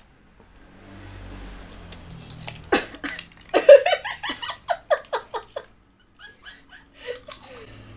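Crisps rustling in a crisps canister as they are pulled out, then a woman laughing in a run of short bursts, starting about three seconds in.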